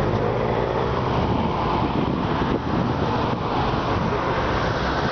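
Steady road traffic at a street junction: cars and vans running and passing, a continuous rumble of engines and tyres.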